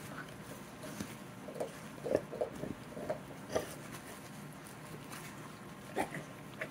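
A dog moving about, making soft irregular clicks and taps, with a sharper tap about six seconds in.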